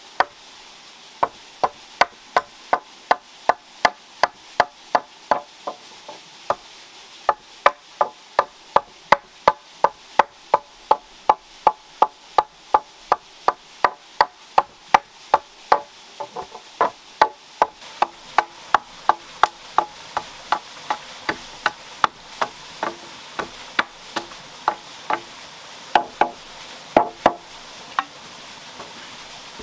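Steady, rapid hammer blows, about two to three a second, each with a short ring, with a brief pause about halfway through and a few heavier blows near the end.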